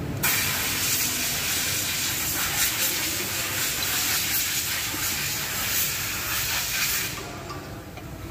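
A loud, steady hiss that starts abruptly and dies away about seven seconds later.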